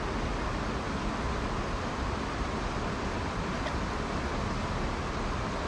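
Mountain stream running over a rocky bed: a steady, even rushing of water.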